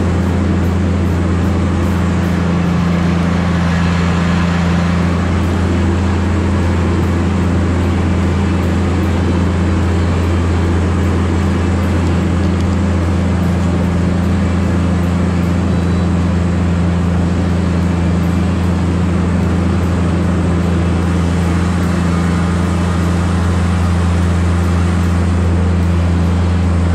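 Tigercat 718E wheeled feller buncher's diesel engine running steadily with a low drone, while its tyres churn through deep flood water with continuous splashing.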